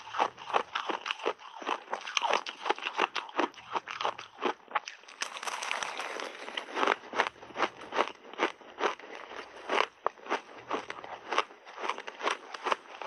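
Crushed ice mixed with fruit crunched and chewed in big mouthfuls close to a clip-on microphone: a steady run of sharp crunches, about two or three a second, with a denser rasping stretch just past the middle.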